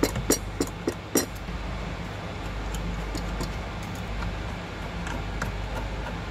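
Metal hardware being worked on a car's strut top mount: a run of sharp clicks, about three a second, through the first second or so, then a few fainter ticks over a steady low hum.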